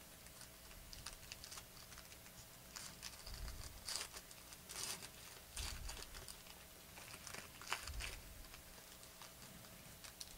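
Foil trading-card pack wrapper crinkling and tearing as it is opened by hand: faint, irregular crackles and rustles, with a few louder bursts in the middle.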